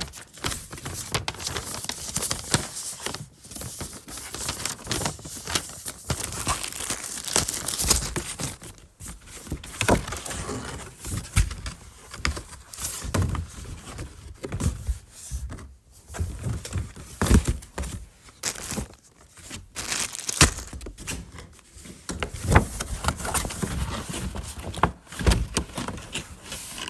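Monopoly game items and board being handled: irregular paper-and-cardboard rustling with frequent small clicks and knocks, in short bursts with brief pauses between.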